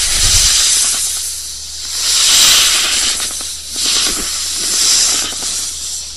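A snake hissing: long, breathy hisses that swell and fade about four times.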